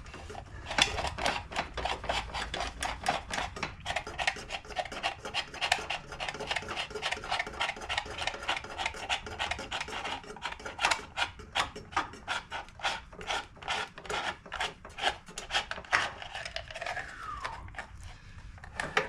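Quick, repeated rubbing and scraping as a loosened oil filter is turned off its threads and handled.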